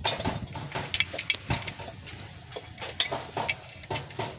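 Irregular metallic clicks and clinks of a wrench working the nuts on the steel housing of a truck air brake chamber, with several close together near the start and more about three seconds in.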